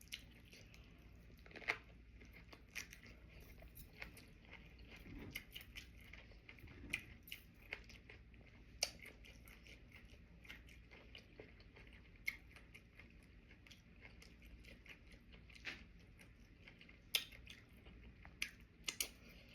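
Faint close-up chewing and mouth sounds of someone eating sushi: soft irregular smacks and clicks scattered through, over a low steady hum.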